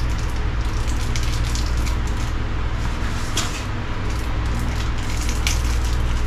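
Small metal parts clicking as crimp ring terminals and a battery terminal screw are handled: scattered light clicks, two sharper ones in the second half, over a steady low hum and hiss.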